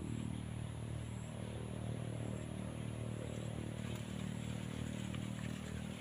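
An engine running steadily with a low drone, a little louder through the middle, with a faint high steady tone above it.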